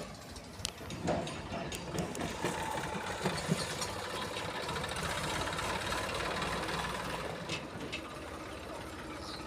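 Diesel engine of a JCB 3DX backhoe loader running steadily, with scattered sharp clanks and rattles from stone-chip loading.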